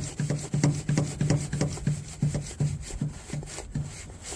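Hydraulic hand crimping tool being pumped, a quick rubbing, creaking stroke about three times a second as the die closes on a jumper cable lug.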